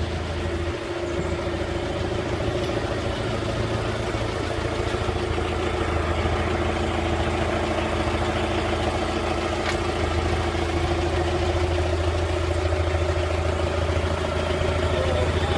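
Off-road vehicle's engine idling steadily, a constant low hum.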